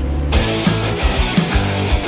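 A rock band comes in at full volume about a third of a second in, with electric guitars, bass and drums and regular drum hits, over the tail of a low rumble.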